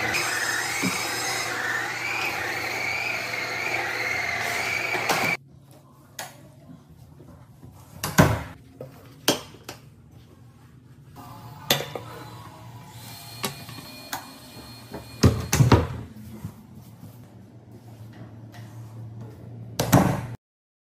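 Wet-dry floor cleaner running over tile, a steady motor hum with a wavering whine, which cuts off suddenly about five seconds in. After that come quieter scattered knocks and clicks of hands handling things.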